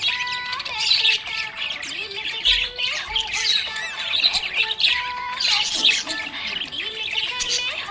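Several small pet parrots chattering together, a continuous mix of rapid high chirps and squawks.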